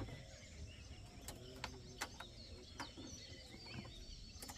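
Quiet forest ambience with faint bird chirps and a few soft, scattered clicks.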